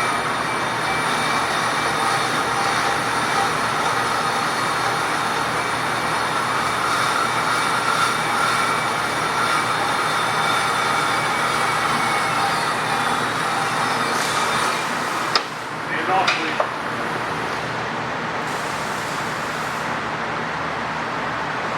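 Horizontal bandsaw, set up with a slow blade speed for aluminum, cutting through the sprue of an aluminum casting: a steady cutting noise with a high whine. About 15 s in the whine drops away and there are a few clattering knocks as the cut finishes, then the saw keeps running.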